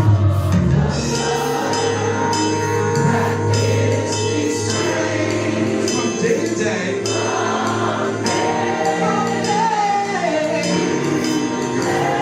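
Gospel music with singing and a steady beat of jingling percussion such as tambourine.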